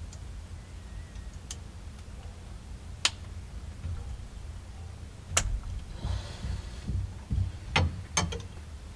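A handful of sharp, separate clicks and taps, about five spread over several seconds, with a short rustle around six seconds in: small parts being handled while fitting the horn wire at the steering wheel hub.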